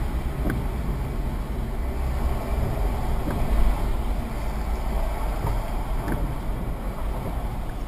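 Inside a slowly moving car: a steady low rumble of engine and tyres on the wet road, picked up by the dashcam. Faint ticks come about every three seconds as the windscreen wiper sweeps.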